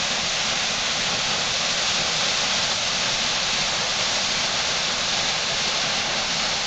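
Steady rushing of a large torrent of water plunging down an ice-covered wall into a deep sinkhole, about 120 feet deep.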